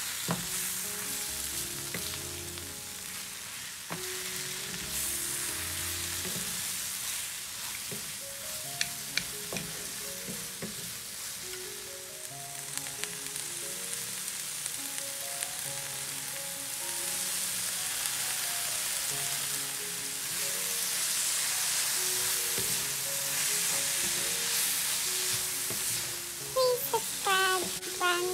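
Spinach and frozen peas sizzling in an oiled nonstick frying pan as a wooden spatula stirs them, the hiss growing louder in the second half. Soft background music plays underneath, and near the end a cat meows several times.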